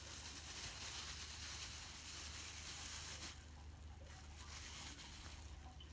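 Soft rustling hiss of cloth and plastic wrapping as a reborn doll is handled. It is strongest for about the first three seconds, then weaker, over a steady low hum.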